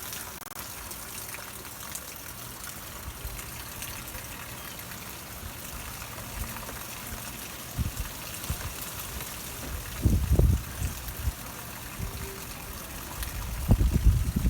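Heavy rain falling in a steady hiss, with gusts of wind buffeting the microphone several times, strongest about ten seconds in and near the end.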